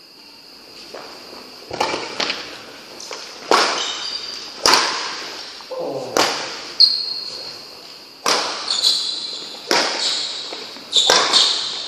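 Badminton rally: racket strikes on the shuttlecock, sharp and echoing, about one a second, with shoe squeaks on the court floor among them.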